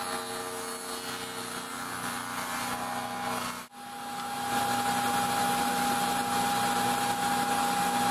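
Table saw fitted with a 1/4-inch dado blade stack, running with a steady hum and a high, even tone. The sound cuts out for an instant about three and a half seconds in, then carries on a little louder.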